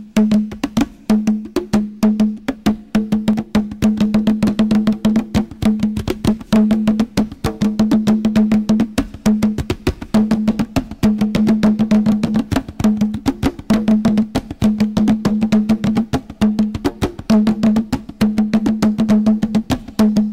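Zimbabwean percussion music: fast, steady struck strokes over a low pitched note that comes and goes in a repeating pattern.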